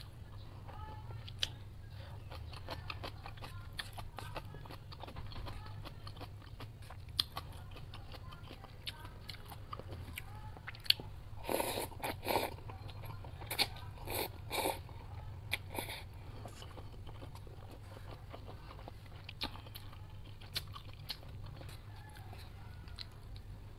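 Close-up eating sounds: chewing with many small wet mouth clicks, and instant cup ramen noodles slurped in a few short bursts about halfway through, over a steady low hum.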